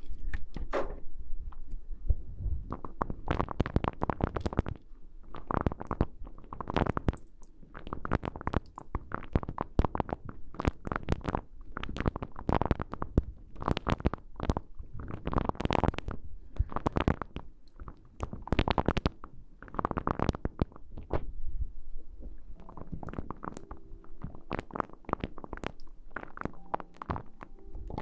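Close-miked rustling and scratching in repeated crackly bursts, about one a second, with a low rubbing rumble underneath.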